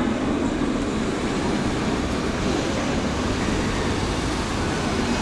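Steady street traffic noise, with cars driving past close by.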